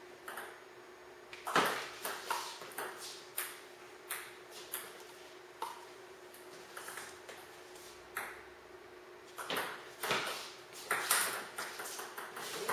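Table tennis rally: the celluloid ball clicks sharply off rubber paddles and bounces on the table, about one or two clicks a second. A faint steady hum runs underneath.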